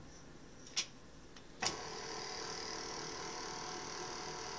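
KitchenAid Artisan stand mixer: a couple of clicks, then the motor switches on with a sharper click about a second and a half in. It runs steadily on its lowest 'stir' speed, the flat beater turning through flour and bread sponge.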